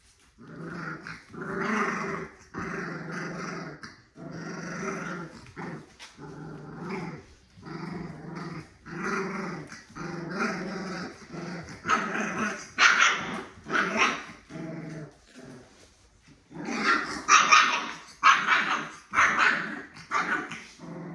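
Puppy growling in a string of short bouts, with a few barks mixed in. The bouts grow louder and sharper past the middle and again near the end.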